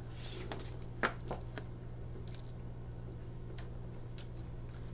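Tarot cards being gathered up off a cloth-covered table: a soft shuffle of card stock, then two light taps about a second in and a few faint ticks, over a low steady hum.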